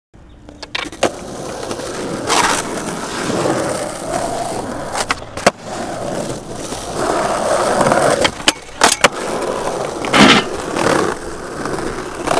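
Skateboard wheels rolling over concrete and paving, the rolling rising and falling, with several sharp clacks of the board hitting the ground.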